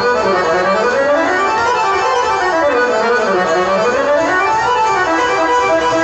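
Accordion-led festa junina music, the accordion playing quick melodic runs that climb and fall in pitch.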